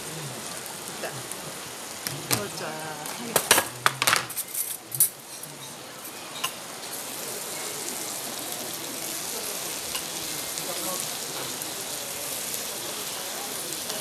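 Gochujang-coated deodeok sizzling in a hot stone bowl: a steady hiss that grows a little stronger after the middle. About two to five seconds in, a quick run of sharp clinks of tableware, the loudest sounds.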